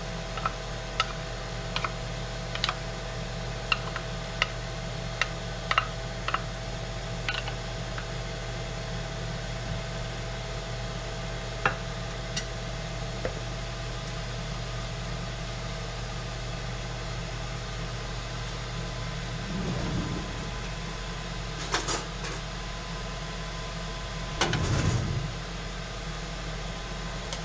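A wooden spoon scraping and tapping thick barbecue sauce out of a metal measuring cup into a mixing bowl: a string of light clicks over the first several seconds. A steady hum runs underneath, and near the end there are a few more clicks and two short dull knocks.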